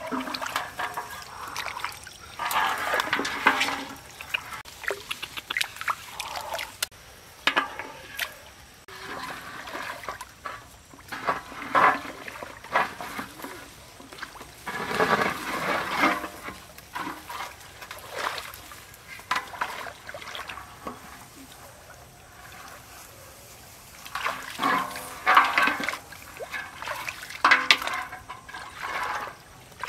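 Hands sloshing and splashing through shallow water in irregular bursts while groping along the bottom for snails.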